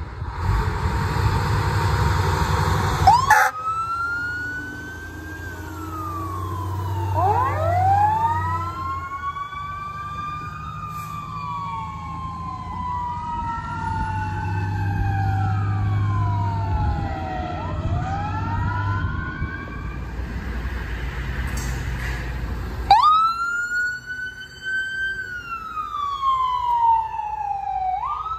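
Fire engine sirens wailing, several overlapping rising and falling glides, over the low rumble of the truck's engine as it pulls away; the first three seconds hold a steady blaring tone. After a cut about 23 seconds in, an ambulance siren wails up and down.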